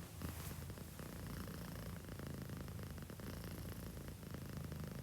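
Sleeping domestic cat making a low, continuous rumble, which the uploader calls snoring.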